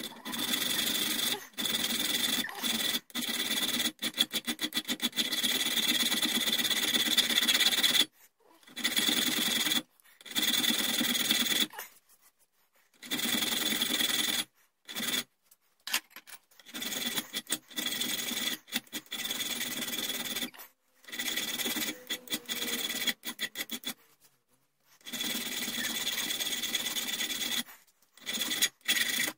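A hand file rasping back and forth over a steel rear sight clamped in a bench vise, shaping the sight down. It starts with a quick run of short strokes, then settles into longer strokes of about a second each with brief pauses, many carrying a high ringing note.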